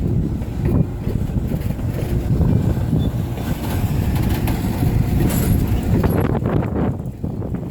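A train running past, heard as a loud, steady low rumble.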